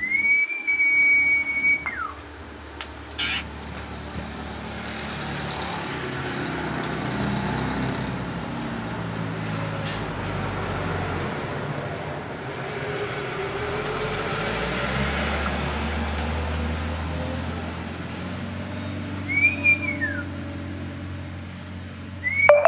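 Sirtu bird whistling. One long level note falls away at its end, a short rising-and-falling whistle comes near the end, and another level note starts just before the close. Between the whistles a steady rumbling noise swells and fades.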